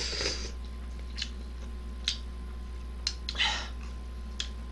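A person slurping ramen noodles off a spoon in one short hissing slurp, then chewing with a few wet clicks of the mouth and a short breathy sound about three and a half seconds in.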